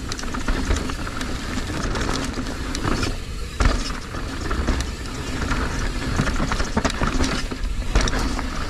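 Mountain bike running down a rough dirt trail: tyres rumbling over the ground and the bike rattling and knocking over rocks and roots in quick irregular clicks and clunks, with a low rumble of wind on the camera microphone.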